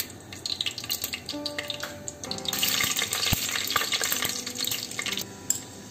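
Fenugreek seeds frying in hot oil in a clay pot, crackling and beginning to splutter. The sizzle thickens about two seconds in and breaks off near the end.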